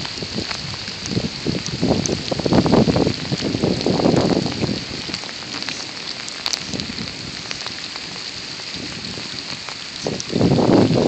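Steady rain, with louder surges of low rushing noise every second or two early on and again near the end.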